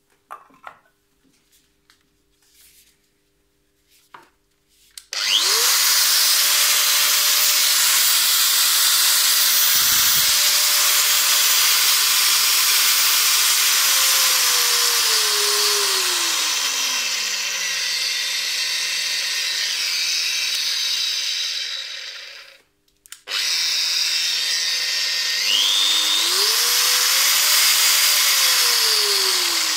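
A few light handling clicks, then about five seconds in a Metabo WEV 15-150 Quick angle grinder starts and runs free with no disc fitted, a steady high whine. Its speed is turned down to a low hum and the motor stops about three-quarters through; it restarts at low speed, winds up to full speed and is turned down again near the end.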